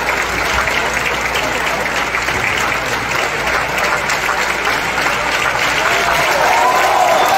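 Large audience applauding steadily, with many hands clapping at once.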